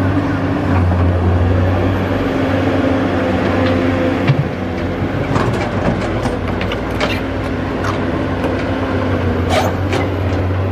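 Cat 320D hydraulic excavator's diesel engine running steadily under working load, with a constant low drone. Sharp clanks and knocks come through it as it works, the loudest single knock about four seconds in and a cluster a second or two later.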